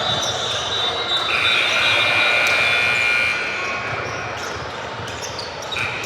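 Basketball being dribbled and bouncing on a gym court, echoing in a large hall over a background of voices, with a couple of long high-pitched squeals in the first half.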